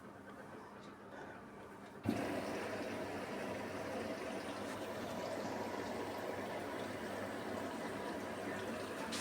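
A Beko WMY81283LMB2 washing machine's water inlet valve clicks open about two seconds in, and water then rushes steadily into the machine as it fills at the start of a wool 30 wash.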